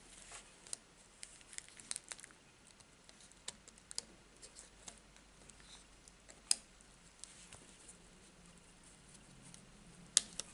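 Scattered small clicks and light rustling as a cassette Walkman's circuit board is handled and pressed into place on its chassis over a plastic sheet. One sharper click comes about six and a half seconds in, and another near the end.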